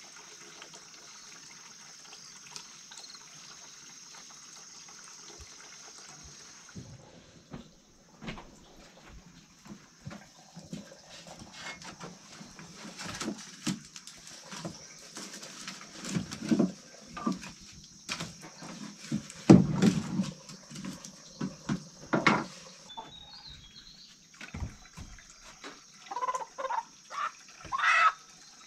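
A steady hiss, then a run of knocks and clatter with the loudest thump about two-thirds of the way in, then a chicken squawking several times near the end.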